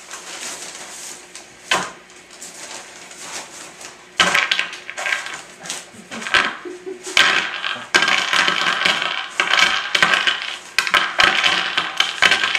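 Metallic clinking and rattling made of many quick strikes, sparse at first and turning into a dense, louder clatter about four seconds in.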